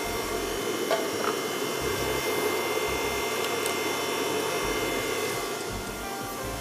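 Electric stand mixer running steadily, its whisk beating egg whites in a steel bowl with an even motor whir.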